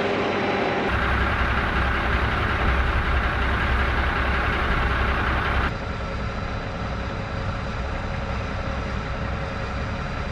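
Heavy diesel truck engine idling steadily, its sound changing abruptly about a second in and again about halfway through.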